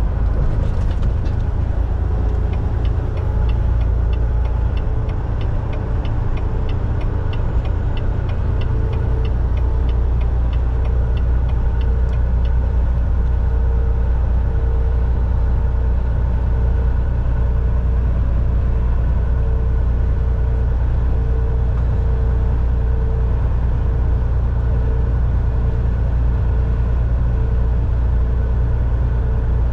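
Semi-truck driving at highway speed, heard from inside the cab: a steady deep engine and road drone. For the first dozen seconds there is also a regular ticking, about two ticks a second.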